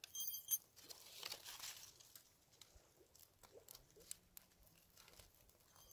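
Dry birch bark crinkling and rustling as curls of it are piled onto a small flame, with scattered faint crackles and clicks. A brief metallic ring with a few sharp clicks comes at the very start.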